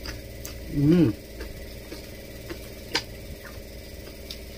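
Crispy pata skin (deep-fried pork knuckle) crunching as it is bitten and chewed close to the microphone: a few sharp crackles, the loudest about three seconds in. A short hummed "mm" comes about a second in.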